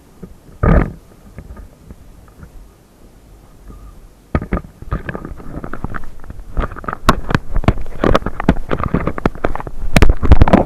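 Strong wind buffeting the microphone with low rumbling and crackling. There is one sharp gust less than a second in, a quieter stretch, then harder, continuous gusting from about four seconds in.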